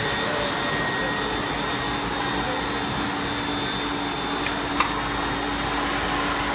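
Imitation marble board extrusion line running: a steady machine whir and hum from the extruder drive and its barrel cooling fans, with two short sharp clicks about three-quarters of the way through.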